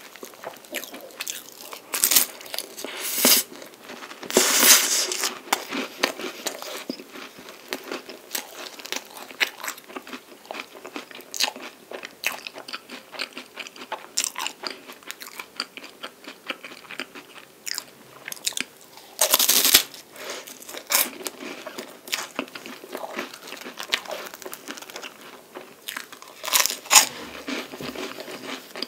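Crunching bites and chewing of chocolate-coated palmier carré, a flaky puff pastry, dipped in whipped cream. A steady patter of small crunches is broken by a few louder bites, the loudest near the end.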